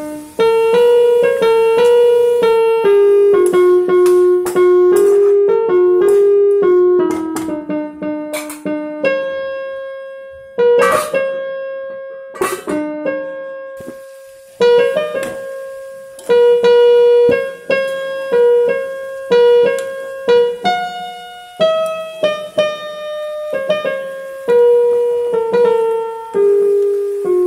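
Background music on a piano-like keyboard: a simple melody of single struck notes, each fading after it sounds, with a sparser, slower passage in the middle.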